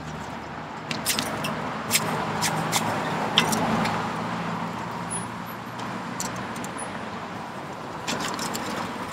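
Road traffic on a busy bridge: a vehicle passes close by, its sound swelling over the first few seconds and then easing off, with an engine hum that fades out. A few sharp clicks from handling the magnet sound over it.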